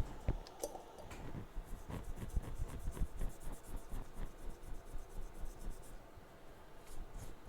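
Light scratching, rubbing and tapping of small hand tools working on a circuit board. A fast, even ticking high in pitch runs from about one and a half to six seconds in.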